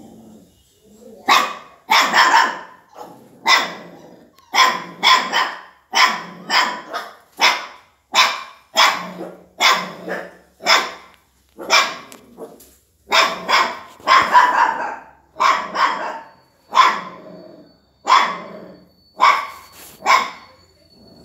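Dog barking over and over, sharp single and double barks at about one to two a second, starting about a second in and stopping just before the end.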